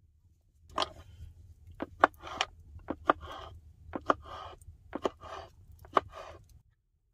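A knife slicing a roasted red pepper on a wooden cutting board. There are six cuts about a second apart, each a sharp tap of the blade on the board followed by a short scrape.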